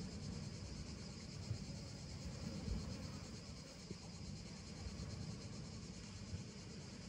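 Faint, steady chorus of insects chirring, high-pitched and finely pulsing, over a low uneven rumble.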